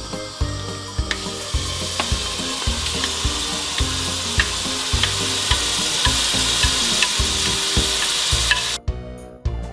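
Mushroom, onion and garlic paste sizzling as it fries in a pan, being cooked down to drive off its liquid, over background music with a steady beat. The sizzle cuts off suddenly near the end.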